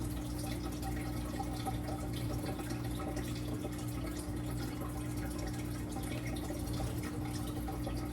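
Steady background noise with a low, even hum.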